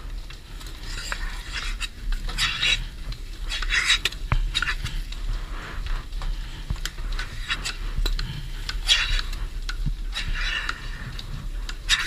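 Milking machine at work: short, irregular hisses of air drawn in as teat cups of milking clusters are put on, with metallic clinks and knocks from the clusters and parlour rails, over a steady low hum.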